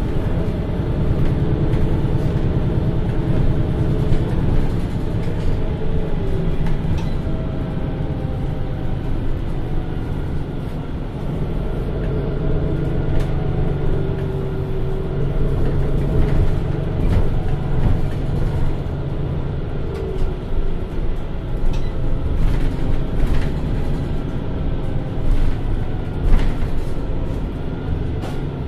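MAN Lion's City NL323 city bus's six-cylinder diesel engine running while the bus drives, its pitch rising and falling several times as it pulls away and eases off. Occasional short clicks and rattles are heard over the drone.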